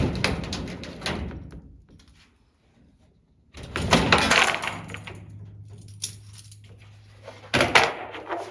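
Clatter and rattling from parts being handled: a sharp knock followed by rattling, then more clattering with a low hum underneath, and another sharp knock near the end.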